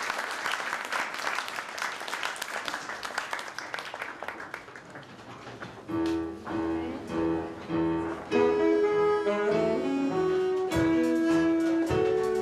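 Audience applause fading out, then a small live band strikes up about halfway through: keyboard with bowed strings, playing a few separate phrases before settling into a continuous tune.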